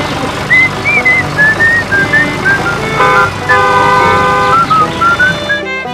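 Background music: a high, whistle-like melody of short notes stepping downward in pitch, over held chords.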